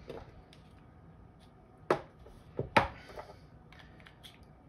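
Sharp clicks and clacks of a Hi-Capa gas blowback airsoft pistol being handled, the two loudest about a second apart, around two and three seconds in, with a few lighter ticks between.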